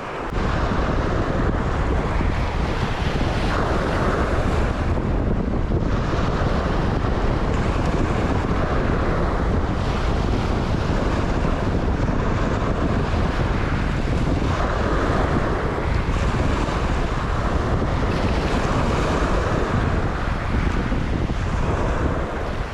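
Wind buffeting the microphone with a heavy low rumble, over sea surf washing onto the shore in surges every few seconds.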